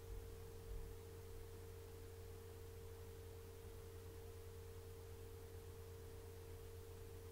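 Faint steady hum: a single unwavering tone over a low drone, with a couple of soft low bumps in the first second.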